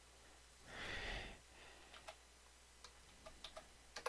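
Computer keyboard keys clicking faintly as the command 'sl -F' is typed and entered, about half a dozen light keystrokes in the second half. A short soft rush of noise comes about a second in.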